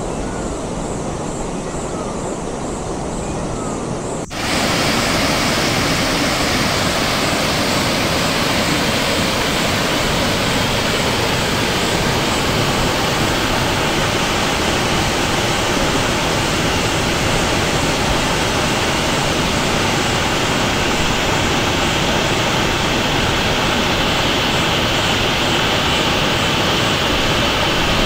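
Rushing water: for about four seconds a muffled, dull wash of stream water, then an abrupt change to a steady, louder rush of water pouring over a small concrete weir.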